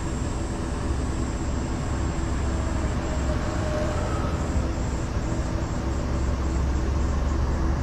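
Steady low rumble with a thin, high steady whine above it, growing a little stronger near the end.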